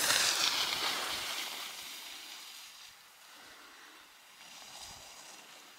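Skis sliding and scraping over packed snow, a hiss that fades away over the first two to three seconds, leaving only a faint outdoor hush.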